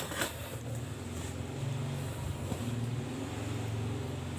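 Twin-tub washing machine motor humming steadily with a low drone. The machine is stuck, which the repairer puts down to its bushing.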